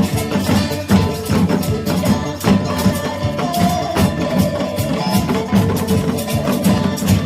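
Music with a steady percussion beat under a melody line.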